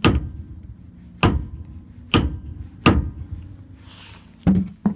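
Hammer blows on a steel tool staking the wheel bearing nut of a VW T3 hub into its groove so the nut cannot work loose: six sharp metallic strikes with short ringing, about a second apart, the last two coming close together near the end.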